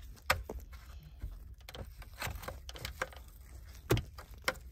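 Irregular sharp clicks and taps of hand tools and plastic dashboard trim being handled while screws are taken out, with two louder knocks, one just after the start and one near the end.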